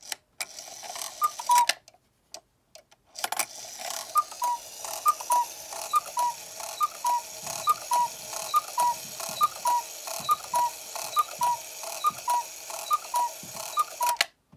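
Regula Black Forest cuckoo clock striking twelve: its bellows pipes give the two-note cuckoo call over and over, about every half second, over the whirring and clicking of the strike train. One call sounds about a second in, then a short pause before the run of calls.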